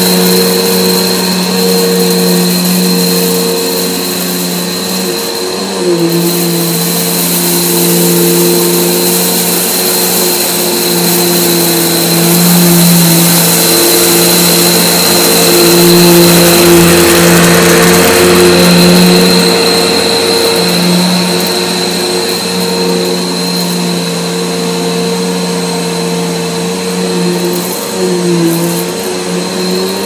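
Bernina 6100 upright vacuum cleaner running at full power on carpet, a steady motor hum and high whine over airflow hiss, as it is pushed back and forth picking up scattered rice. It grows louder as it passes close by in the middle, and its pitch dips briefly about six seconds in and again near the end.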